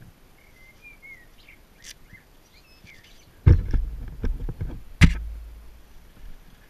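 A few faint bird chirps, then about three and a half seconds in a sudden burst of loud thumps over a low rumble on the microphone, and another sharp thump about a second and a half later whose rumble dies away slowly.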